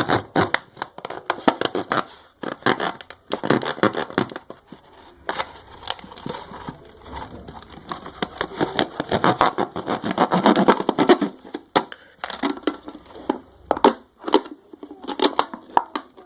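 Material being cut and torn by hand for a homemade speaker, with irregular crinkling and crackling that stops and starts several times.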